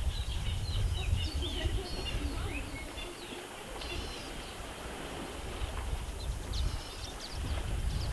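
Birds chirping and calling in quick, short notes and trills over a low rumble.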